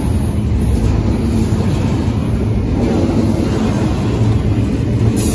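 A CN double-stack intermodal container train passing close by, its cars rolling past in a loud, steady low rumble.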